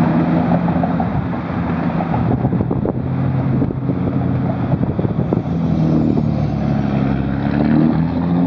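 A motor engine running with a steady droning hum whose pitch steps up and down several times, over a constant hiss.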